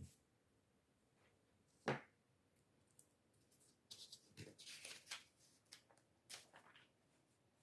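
Faint handling noises: a sharp tap or knock about two seconds in, then a stretch of rustling and small clicks.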